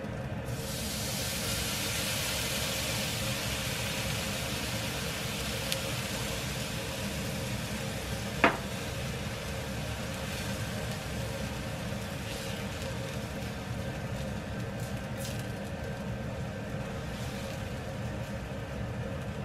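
Liquid poured into a hot wok of stir-fried soaked rice and sliced garlic, setting off a loud sizzle that slowly fades to a quieter hiss while a spatula stirs. About eight seconds in, the spatula gives one sharp knock on the enamelled cast-iron pan.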